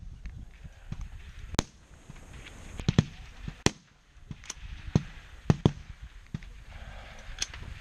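Rifle shots from competitors along a high-power rifle firing line: sharp cracks at irregular intervals, about nine in all, some in quick pairs.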